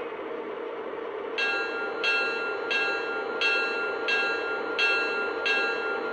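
Electronic locomotive bell of a Lionel Santa Fe Gold Bonnet O gauge diesel model, ringing steadily at about one and a half strokes a second. It starts about a second and a half in, over a steady hum.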